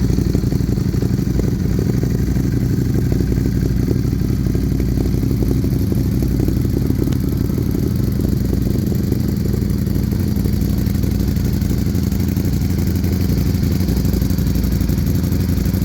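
Ducati motorcycle engine idling steadily through an aftermarket performance exhaust, a deep, even note with no revs.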